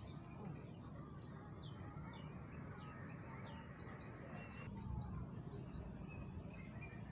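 Small birds chirping, a quick run of short high notes that is busiest in the middle, over a low rumble of wind on the microphone.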